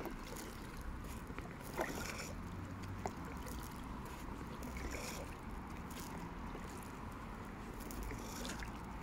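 Kayak paddle blades dipping into calm river water, with faint splashes and drips every few seconds over a steady low rumble.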